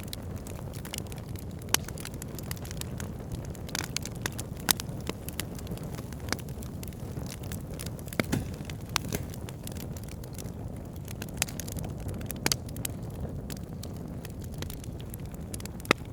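Fireplace fire crackling: a steady low rumble of burning with frequent irregular sharp pops and snaps, a few noticeably louder than the rest.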